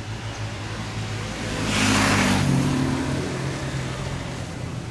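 A motor vehicle passes close by, its engine noise swelling to a peak about two seconds in and its pitch falling as it goes away, over a steady low engine hum.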